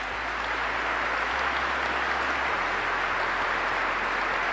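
Audience applauding, swelling at first and then holding steady.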